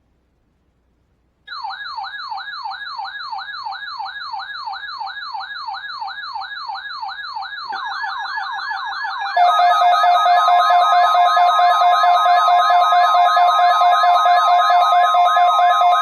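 Electronic siren wail sweeping up and down about three times a second. A second wail layers in about halfway through, and a loud steady alarm tone chord joins a little later.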